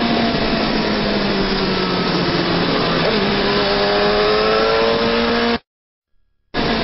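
Sport motorcycle engine running at high revs under heavy wind rush at speed. Its pitch breaks about three seconds in, then climbs steadily. The sound cuts out completely for about a second near the end, then comes back.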